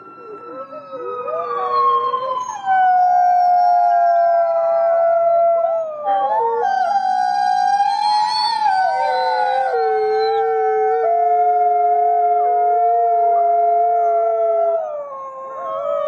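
Several dogs howling together: long, drawn-out howls at different pitches overlap and hold, sliding up and down a little. The chorus builds over the first couple of seconds, then stays loud, easing briefly near the end.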